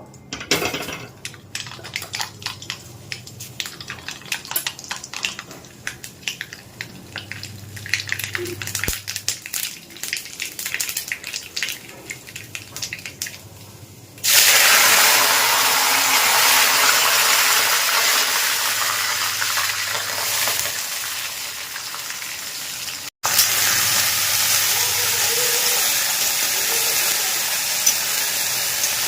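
Light, irregular clicks and knocks of kitchen utensils, then about fourteen seconds in a sudden loud, steady sizzle of food frying in hot oil in a pan, with a momentary break partway through.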